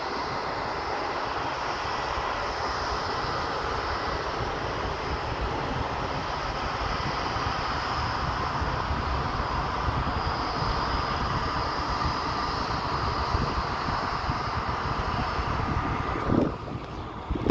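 Jet airliner engines running at high power on the runway, a steady whining jet noise. A brief thump comes near the end.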